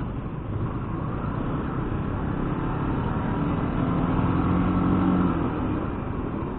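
Road traffic noise, with a motor vehicle's engine growing louder to a peak about five seconds in and then fading.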